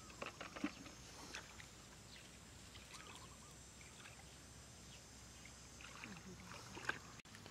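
Faint sloshing and splashing of hands groping in shallow muddy water, with a few short sharp splashes, the loudest near the end.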